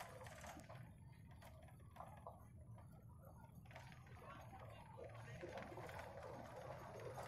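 Zoo toy train running on its narrow-gauge track: faint, irregular clicks of the wheels over the rail joints, over a low steady rumble.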